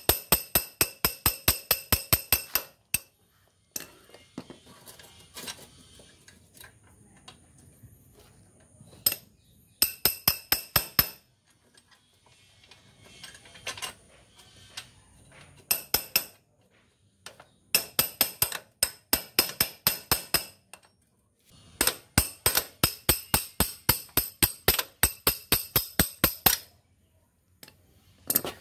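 Rapid metallic clicking of a wrench working a motorcycle's rear axle nut: several bursts of quick, evenly spaced clicks, about ten a second, each with a ringing tone, with short pauses between bursts.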